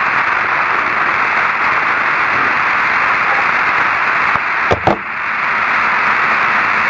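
Steady radio static hiss on an open, narrow-band space-to-ground voice channel, with two short crackles nearly five seconds in.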